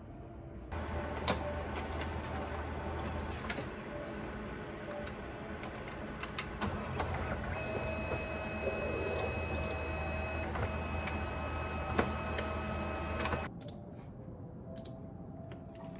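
Office photocopier running a copy job: a steady mechanical hum with repeated paper-feed clicks and a couple of steady high tones. It starts about a second in and stops suddenly about 13 seconds in.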